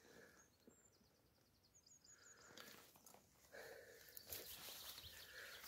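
Near silence, with a few faint high chirps in the first two seconds and faint shuffling from about three and a half seconds in.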